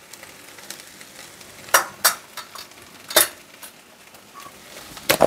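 Okra, onion and tomato frying on a low flame in a stainless steel kadai: a faint steady sizzle with a few sharp clicks, about two and three seconds in and again near the end.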